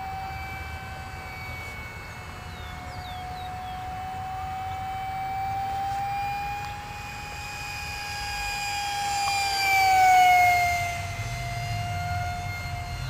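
Model F-16 jet's ducted fan whining steadily as it flies a low pass, growing louder to a peak about ten seconds in, then dropping slightly in pitch as it goes by.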